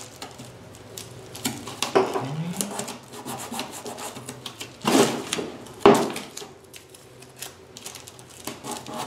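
Hands rubbing and pressing strips of masking tape down onto a Depron foam wing, a soft scratchy rubbing with louder scrapes about two, five and six seconds in.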